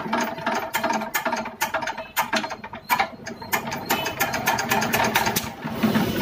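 Fast, uneven metallic clicking and clattering from a Kirloskar Varsha air-cooled diesel water-pump engine that has starting trouble, with a steady mechanical chatter underneath.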